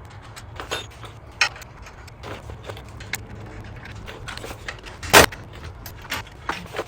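Scattered metallic clicks and clinks of bolts and hardware being handled and fitted into a steel gusset plate, with one sharper metal knock about five seconds in.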